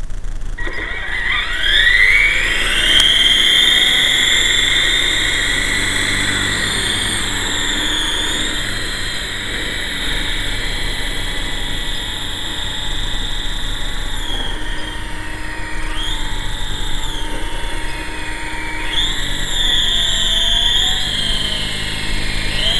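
GT Model QS8006 RC helicopter's electric motor and rotors spinning up with a rising whine about a second in, then a steady high whine that dips and climbs in pitch several times as the throttle is worked.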